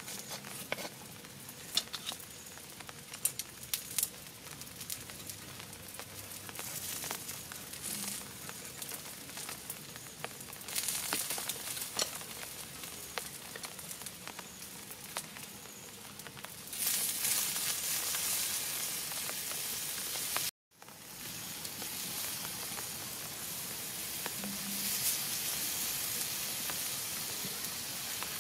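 Scattered light clicks and taps of a wooden pestle and a bamboo stick working in a coconut-shell bowl. A little past halfway, steady sizzling takes over as sauce is brushed onto lizards roasting on a hot flat stone over a wood fire. The sizzling breaks off for an instant, then resumes.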